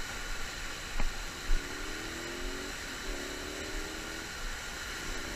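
Steady rushing of river water pouring over a low-head dam spillway. Two short knocks come about a second in, and faint distant pitched sounds come through in the middle and near the end.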